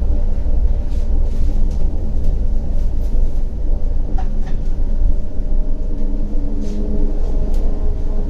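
CAF Urbos 100 tram running along the line, heard on board: a steady low rumble with several steady humming tones above it, and a few short clicks and squeaks.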